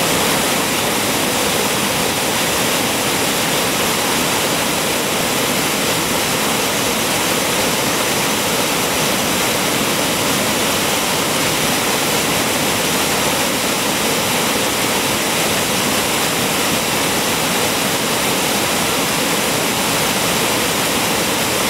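Waterfall: river white water pouring and crashing over rocks in a loud, steady rushing noise.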